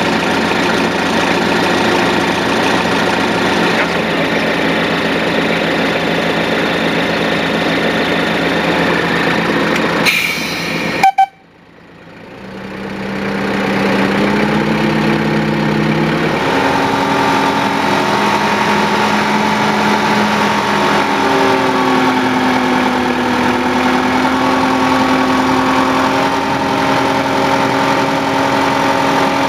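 The miniature railway locomotive's engine running with a steady hum. About ten seconds in there is a brief sharp noise, then the sound cuts out suddenly and swells back up over the next few seconds with steady engine tones that shift slightly in pitch.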